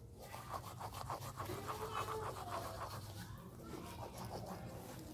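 Toothbrush scrubbing teeth in quick back-and-forth strokes, strongest in the first three seconds.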